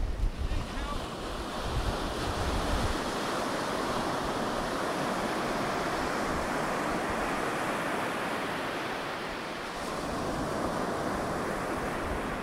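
Ocean surf breaking and washing up a sandy beach, a steady rush that swells and eases. Wind buffets the microphone with a low rumble for the first few seconds.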